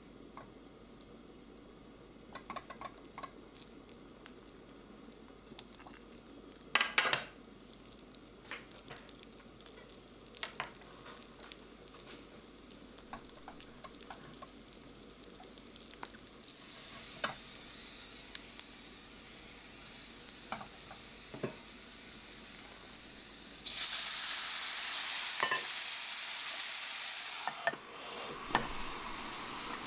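Gyoza frying in oil in a non-stick frying pan: a quiet sizzle, with soft taps and clicks as the dumplings are set into the pan. About 24 s in, a much louder, steady sizzling hiss starts suddenly and lasts about four seconds, then drops as a glass lid goes on for steam-frying.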